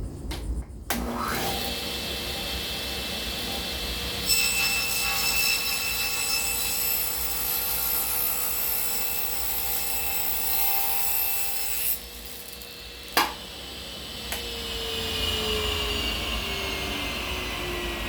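1948 Walker-Turner table saw starts up and runs steadily, then cuts a 1x board for about eight seconds. Near the end it is switched off with a click and the blade winds down, its pitch falling.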